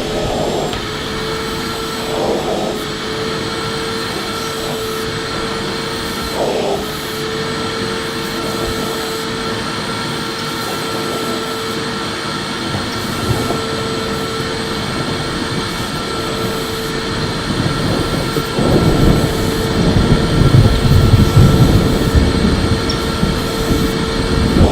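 Electric vacuum cleaner running steadily, a constant motor whine over rushing air. About three-quarters of the way through, a louder low rumbling comes in on top of it.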